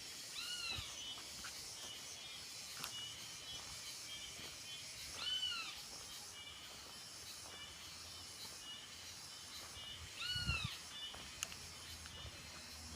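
Red-legged seriema giving three short single calls about five seconds apart, each rising then falling in pitch, over faint repeated high chirping from other birds. A low thump comes with the third call.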